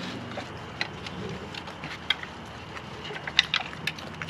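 Raccoons rummaging among plastic toys and food on a paved patio: scattered small clicks and taps, the sharpest about three and a half seconds in, over a low steady hum.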